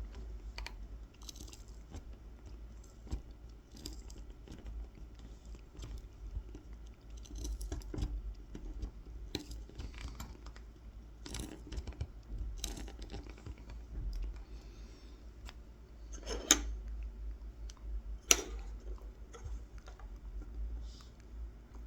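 Kolrosing knife scoring fine lines into a wooden honey dipper: a run of small crisp scratches and clicks as the blade cuts the grain, with two sharper clicks about sixteen and eighteen seconds in.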